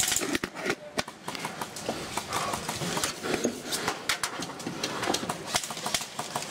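Airsoft gunfire: a rapid burst of automatic fire at the very start, then scattered sharp clicks and pops of single shots and BBs striking.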